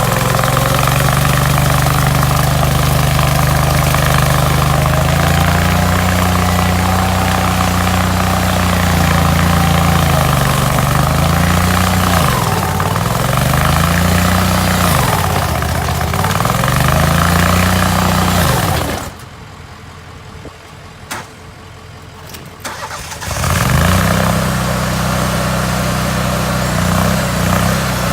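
Hydraulic stump grinder's engine running at working speed. Between about twelve and eighteen seconds in, its pitch sags and recovers several times as it is loaded while grinding the stump. About two-thirds of the way through, the sound drops away sharply for about four seconds, then the engine is running again.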